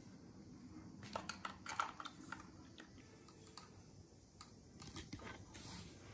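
Thin paintbrush tapping and dabbing in the wells of a plastic watercolour palette: a cluster of light clicks about a second in and another near the end.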